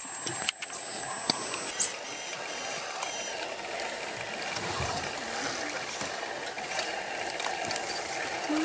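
Porcupine rattling its raised quills as a warning: a dense, steady dry rattle, with a thin steady high tone above it.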